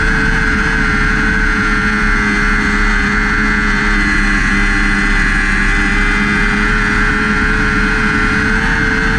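Lightning sprint car's 600cc motorcycle engine running at high revs through a lap, heard from a camera mounted on the car. The pitch stays fairly steady with only slight rises and dips, over a constant rush of wind and road noise.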